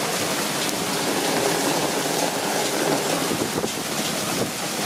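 Heavy downpour pelting the balcony and the leaves of a tree as a steady, dense hiss of drops.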